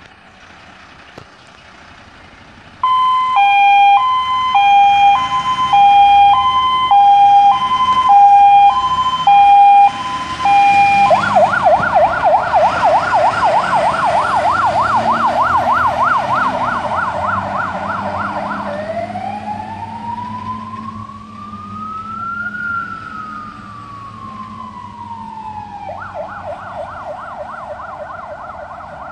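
Electronic siren of a MAN LE 18.280 fire engine responding to an emergency: about three seconds in it starts a loud hi-lo two-tone, switches to a fast yelp, then a slow rising and falling wail, then back to the fast yelp. It fades as the truck drives away, with its diesel engine faintly underneath.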